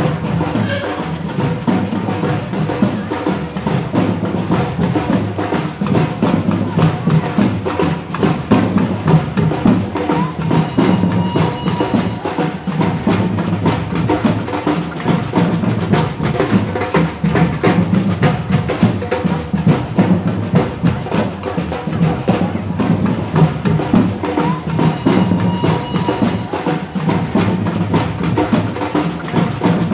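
Percussion-led music, dominated by drums, playing throughout.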